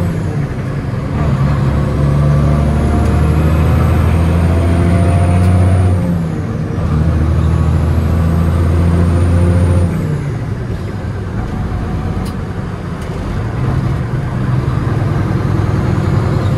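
Big Cam Cummins inline-six diesel of a Peterbilt 379 heard from inside the cab, working through the gears of its 18-speed Eaton Fuller transmission. The engine note breaks and changes pitch at the shifts about 6 and 10 seconds in, eases off for a few seconds, then pulls again near the end. A faint high whistle climbs with the revs early on.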